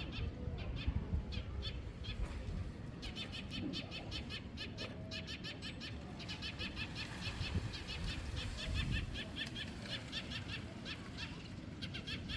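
Small birds chirping in quick repeated trills, high-pitched and many notes a second, over a steady low rumble.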